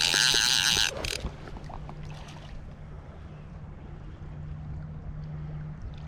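Click-and-pawl drag of a Hardy Marquis Salmon fly reel buzzing for about a second as a hooked steelhead pulls line, then wind and river water with a steady low hum underneath.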